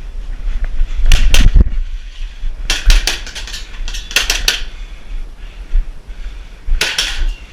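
Airsoft pistols firing in four quick bursts of sharp cracks, three or four shots at a time, with a pause between bursts.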